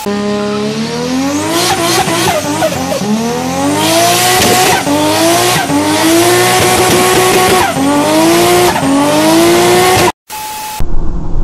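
Sports car doing a burnout: the engine's revs climb in pitch several times, dropping back between climbs, over the hiss and squeal of spinning tyres. It cuts off abruptly near the end, followed by a short electronic beep.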